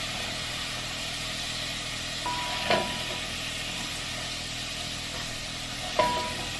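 Diced potatoes and carrots frying in hot oil in a coated pot, a steady sizzle. A spatula knocks against the pot twice, about two and a half seconds in and near the end, each knock with a short ring.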